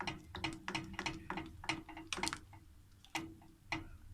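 A stirring utensil tapping and scraping against a pan while gelatin is stirred into a thickened cream mixture to dissolve, in a run of quick, irregular clicks, two or three a second.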